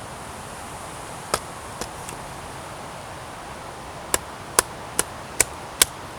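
Axe chopping wood: a few scattered sharp strikes, then from about four seconds in a steady run of quick chops, about two a second.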